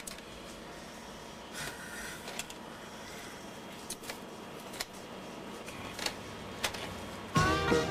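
Scattered light clicks and handling noises over a low hiss, from hands working the controls of a professional video tape deck and handling a tape. Guitar music comes in loudly near the end.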